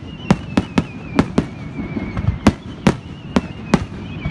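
Fireworks exploding in the air: a rapid, irregular run of sharp bangs, about ten in four seconds, over a low rumble. A faint wavering high tone runs underneath.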